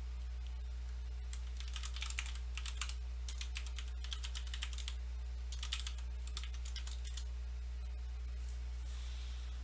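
Typing on a computer keyboard in three quick runs of keystrokes, over a steady low hum.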